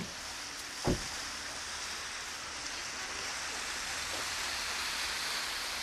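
Steady rushing outdoor noise with a single low thump about a second in.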